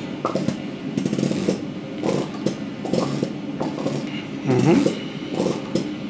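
Irregular small metallic clicks and rattles from the valve gear and cams of a model four-cylinder vacuum (flame-licker) engine, worked by hand while the engine is not running. A louder cluster of clatter comes about two-thirds of the way through.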